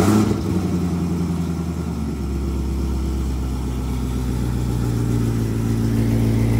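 Chevrolet C6 Corvette's V8 on a cold start: it catches with a loud burst and settles into a steady idle.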